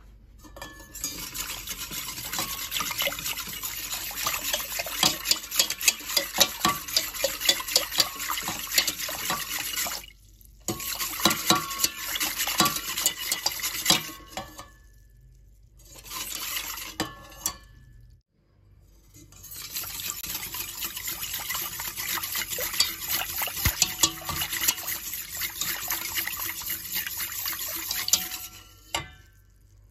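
Wire whisk beating milk and water in a stainless steel pot: liquid sloshing with rapid clicking of the wires against the pot. It comes in four bouts broken by short pauses.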